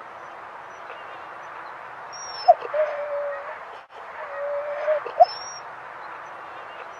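Siberian husky whining: two short, thin whines about two and a half seconds apart, over a steady low hiss.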